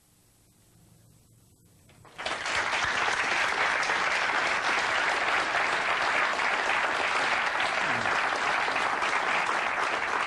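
An audience applauding: near quiet for about two seconds, then clapping starts all at once and holds steady.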